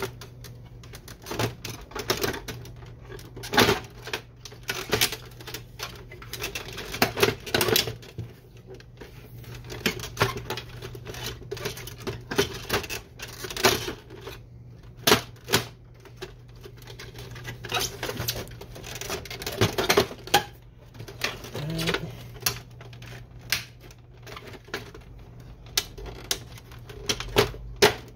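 Plastic printer housing being fitted and pressed into place by hand: irregular sharp clicks, taps and knocks of the cover seating on the body of a Canon Pixma MG6820.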